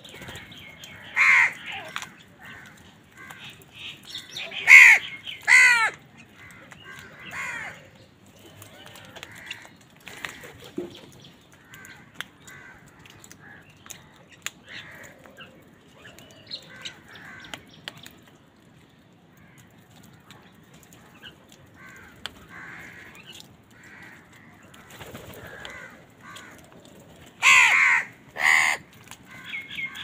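House crows cawing: loud harsh caws about a second in, twice around five seconds in and twice near the end, with fainter calls between.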